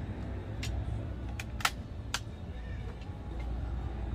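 Four short, sharp clicks in the first half, the third the loudest, over a steady low rumble.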